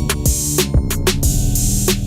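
Background music with a steady electronic drum beat: kick and snare hits over sustained bass and synth notes.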